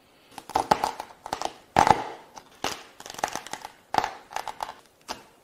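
A chef's knife crunching and cracking through the hard shells of Moreton Bay bugs (slipper lobsters) on a wooden chopping board, in short bursts of crackling about once a second.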